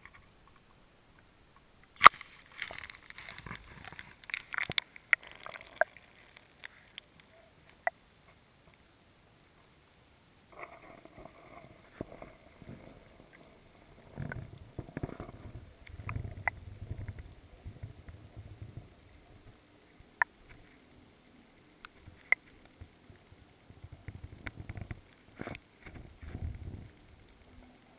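Action camera going into calm water with a sharp knock and a few seconds of splashing and sloshing. Then muffled underwater knocks and low rumbles with a faint steady whine as it sinks.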